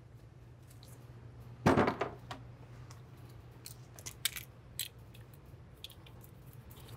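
Hand tools being handled against metal: one loud clunk about two seconds in, then a few light clicks and taps, over a faint low steady hum.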